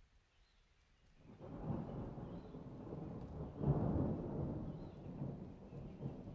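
A roll of thunder: a low rumble that swells about a second in, peaks a little past the middle, then slowly fades.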